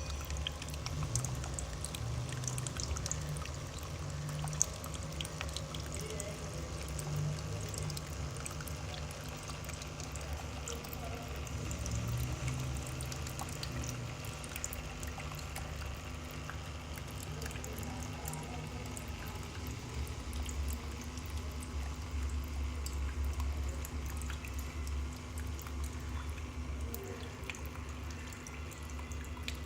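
Water trickling and pouring continuously in a small indoor tabletop fountain, with many small drips and splashes. A steady low hum runs underneath.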